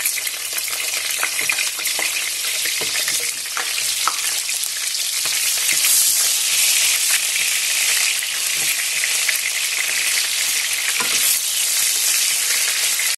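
Sliced onion frying in hot olive oil in a frying pan: a steady sizzle, stirred with a wooden spatula that gives small clicks against the pan now and then.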